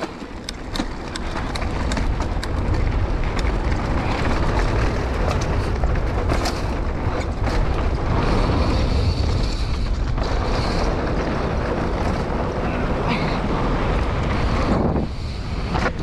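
Wind buffeting the action camera's microphone as a Scott Gambler downhill mountain bike runs fast down a dirt trail, with tyre noise and sharp clicks and rattles from the bike over the ground. The rumble eases near the end as the bike slows.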